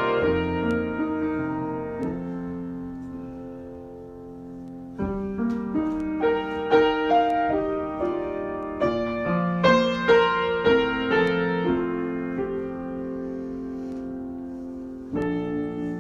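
Solo piano improvisation: chords and short melodic phrases, each struck and left to ring and fade. New phrases come in about five seconds in and again near the end.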